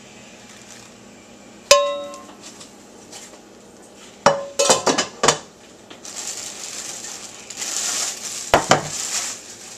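Cookware being handled: a glass pan lid clinks against a nonstick frying pan with a short ringing note about two seconds in, and a few more clinks follow around the middle. Plastic packing wrap then crinkles over the last few seconds.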